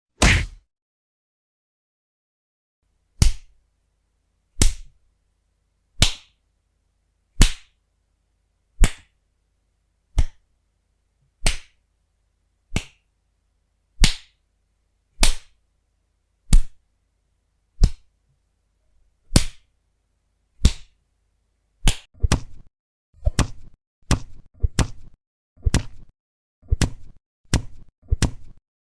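Cinematic fight sound effects of punches and slaps: a series of sharp single hits spaced about a second and a half apart, changing near the end to quicker clusters of two or three blows, each cut off cleanly into silence.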